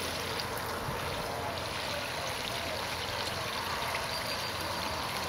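Battered chicken-fried steaks deep-frying in hot oil in a skillet over coals, a steady sizzle. The steaks are browning and nearly done.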